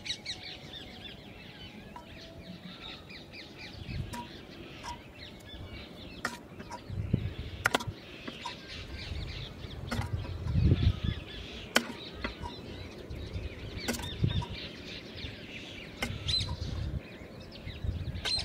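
Small birds chirping and twittering throughout, with sharp clicks every second or two and a few low bumps.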